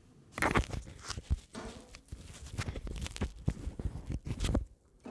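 Handling noises: footsteps, scattered knocks and rustling as a glass beer bottle is carried over and set down on the pellet grill's hopper lid, with one sharper knock a little over a second in.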